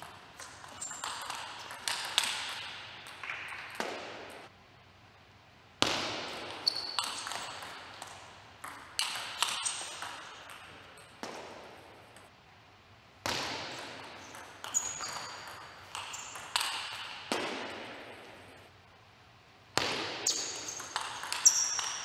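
Table tennis rallies: the ball clicking sharply off the rackets and the table in quick back-and-forth exchanges. The clicks come in four separate runs, with short silent breaks between them.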